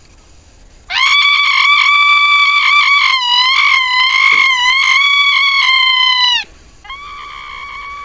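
A loud, high-pitched call held for about five and a half seconds, its pitch wavering in the middle before it stops abruptly; a quieter steady tone of similar pitch follows near the end. It is a reclamo, a lure call to summon someone.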